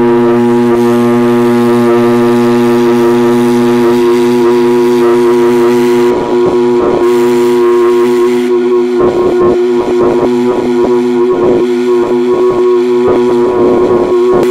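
Replica Swindon GWR Works steam hooter, 3/4 scale and driven by a traction engine's steam, sounding one long, loud, steady low note. From about halfway in, gusts of wind buffet the microphone over it.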